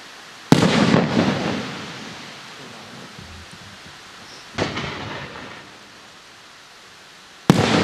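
Aerial firework display shells bursting: three booms, about half a second in, near five seconds (weaker) and near the end, each rolling off in an echo over a second or so.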